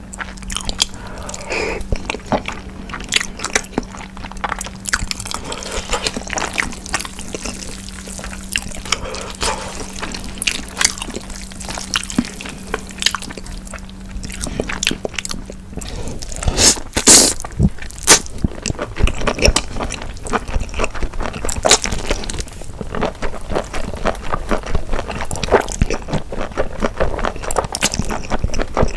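Close-miked eating of spicy cold noodles in sauce: wet slurping, chewing and lip smacks, a dense run of small moist clicks. A faint steady low hum underneath stops a little past halfway.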